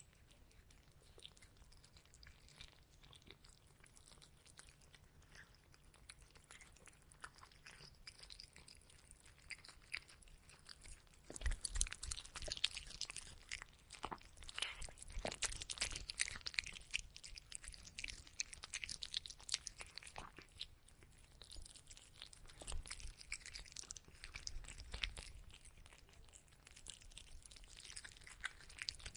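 A black cat eating from a plastic bowl, chewing its food in a rapid run of small crunches that is faint at first and grows louder about a third of the way in.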